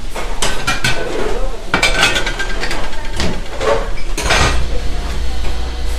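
Kitchen clatter: a metal sauté pan, plates and utensils clanking and clinking in several separate knocks while food is plated, over a steady low hum.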